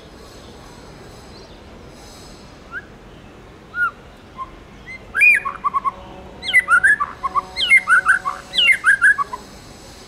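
White-rumped shama singing: a few scattered whistled notes, then from about five seconds in a rapid, varied run of loud whistles and chirps lasting about four seconds.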